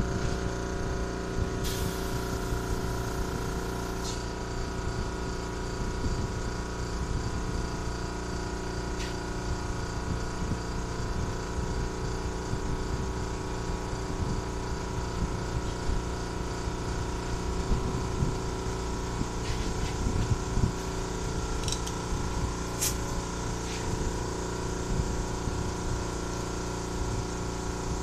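Air compressor running steadily, its motor and pump giving a constant mechanical drone. About two seconds in, a two-second burst of compressed-air hiss cuts in, with a few short clicks later on.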